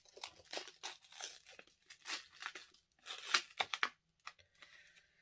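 Packaging being torn open and crinkled by hand to unwrap a small card holder: a series of short rustling tears, busiest a little past three seconds in.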